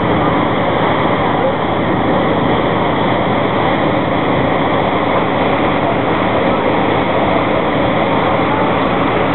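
Steady wind and water noise with a low engine hum, heard aboard a boat under way.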